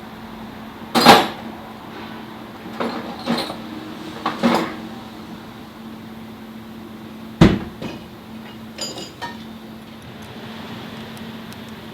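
Several sharp knocks and clanks of hard objects being handled, the loudest about a second in and about seven and a half seconds in, over a steady low hum.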